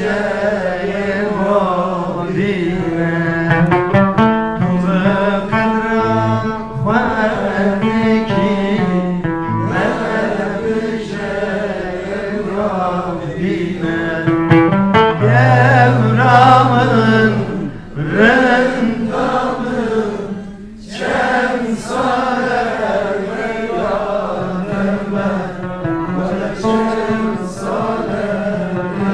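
A man singing a Turkish folk song (türkü) to his own oud accompaniment, the voice bending through long notes over plucked strings.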